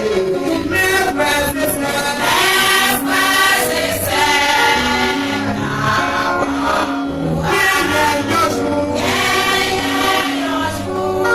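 A choir singing a gospel hymn with instrumental accompaniment and a stepping bass line underneath.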